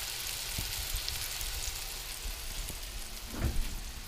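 Spanish mackerel fillets frying in butter and garlic in a pan, a steady sizzling hiss with faint crackles. A louder bump comes about three and a half seconds in.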